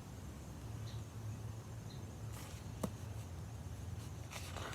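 Quiet room tone with a steady low hum, a single faint click about three seconds in, and soft brief rustles.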